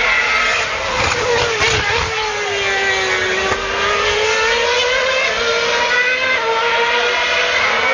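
V8 Formula 1 cars running on the circuit. The engine note slowly falls and then climbs again, with a few sharp steps in pitch as the cars change gear.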